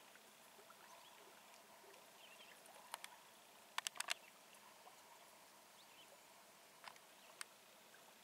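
Near silence with a few faint sharp clicks: one about three seconds in, three close together a second later, and two more near the end.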